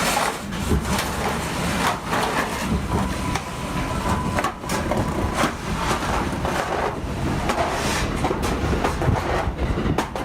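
New York City subway train running along the track, a steady rumble broken by frequent clacks of the wheels over rail joints, with a faint steady whine in the first few seconds.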